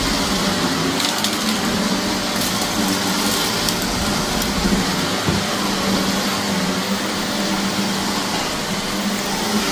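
Shark vacuum cleaner running steadily over dirty carpet: a constant motor hum with a crackling crunch of grit being sucked up, heaviest about a second to four seconds in.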